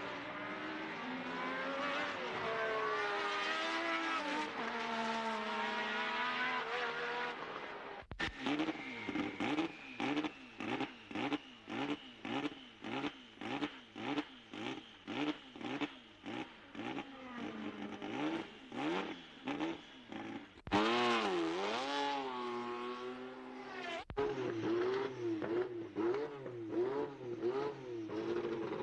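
Formula One racing car engines revving in a few separate cut-together stretches. The pitch rises and falls over and over, and after a break about two-thirds of the way in an engine swoops down and back up.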